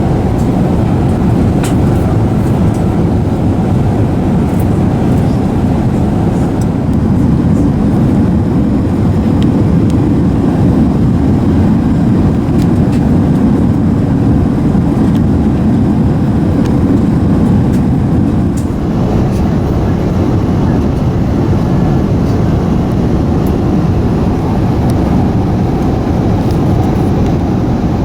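Steady cabin noise inside an Airbus A380 with Rolls-Royce Trent 900 engines: engine and airflow noise with a few faint clicks.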